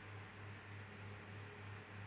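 Electric fan running: a steady airy whir with a low hum that pulses a few times a second.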